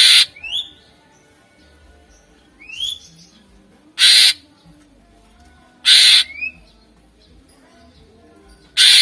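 Greater green leafbird (cucak ijo) calling: four loud, harsh rasping bursts spaced about two seconds apart, each followed by a short rising whistled note.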